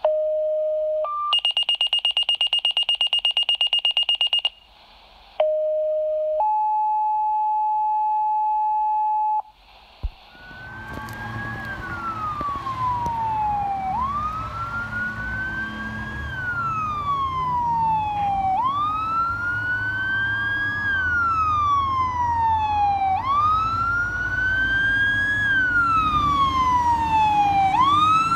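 For about the first ten seconds, a sequence of steady electronic tones at different pitches, with a rapidly pulsed high tone among them, typical of a fire dispatch tone-out. Then a fire truck siren wails, sweeping quickly up and falling slowly, repeating about every four and a half seconds, over a low engine rumble that grows louder as the apparatus approaches.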